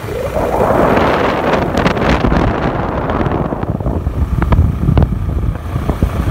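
Wind rushing and buffeting over the microphone of a moving scooter, with low road rumble underneath. It is loudest in the first few seconds, then eases to the rumble, with a few sharp clicks later on.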